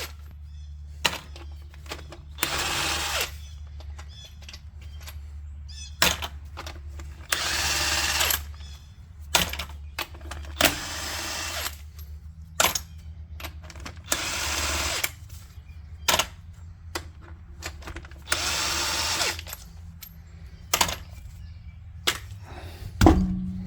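Handheld power tool running in five short bursts of about a second each, with clicks and clatter of tools and parts between them and a steady low hum underneath; a loud knock near the end.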